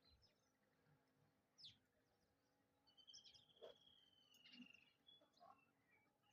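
Near silence with faint bird chirps, and one long, slightly falling call starting about three seconds in.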